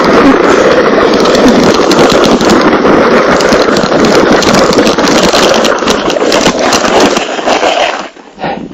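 Plastic hip sled sliding fast over snow, its base scraping and rattling loudly. The noise cuts off sharply near the end.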